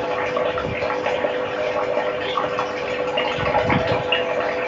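Steady outdoor background at a lake's edge: a constant hum under many small scattered chirps and ticks.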